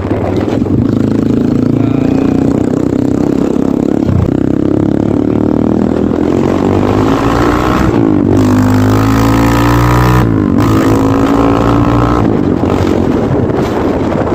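Kayo T2 dirt bike engine pulling hard under acceleration. Its pitch climbs, then drops suddenly at gear changes about eight and ten and a half seconds in.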